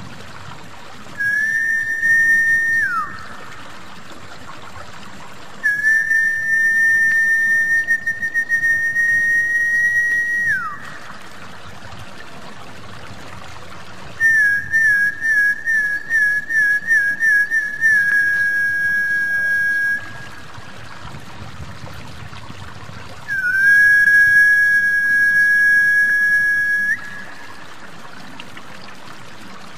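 Snakehead-fish lure whistle call: four long, steady high whistles, the first two ending in a falling slide and the third opening with a quick warble, over a soft trickling of water.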